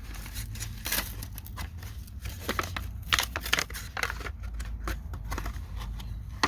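Plastic-and-cardboard package of J-B Weld Plastic Bonder being opened: an irregular run of sharp crackles, clicks and tearing of the packaging.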